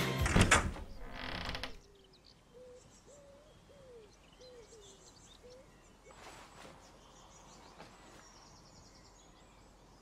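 Music ends with a sharp cut about two seconds in. Then a door creaks in a few faint, drawn-out squeaks, and a short rustle comes about six seconds in.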